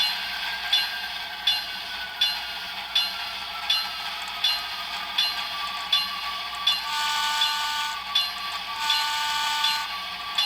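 Sound-equipped HO scale model steam locomotive pulling away, its exhaust chuffing steadily about four times every three seconds, with two long whistle blasts about seven and nine seconds in.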